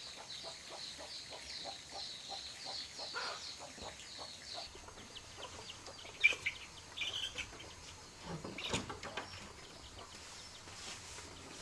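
Chickens clucking in a quick run of short, evenly spaced notes, with high chirping notes over them for the first four seconds or so. After that come a few scattered sharp clicks and knocks.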